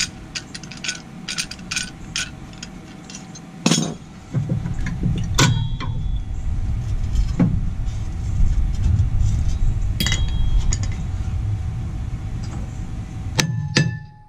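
A few separate metallic clinks and knocks of hand tools against brake parts, some with a short ring, over a steady low rumble.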